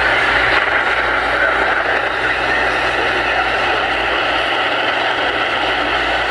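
Steady radio static hiss, loud and even, with no tones or voice in it.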